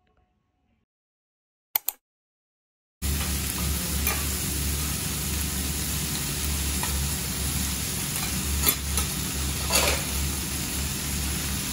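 Two sharp clicks out of near silence, then about three seconds in a steady loud sizzle starts: okonomiyaki frying on a flat iron teppan griddle, with a few short louder scrapes of a metal spatula on the iron.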